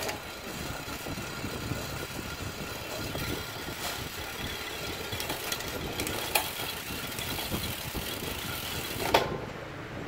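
Shimano 105 road-bike drivetrain spinning on a repair stand as the pedal is cranked by hand: chain running over the chainrings and cassette with a steady whir, and a rattle from the stand knocking against the wheel's spokes. A few sharp clicks come through it.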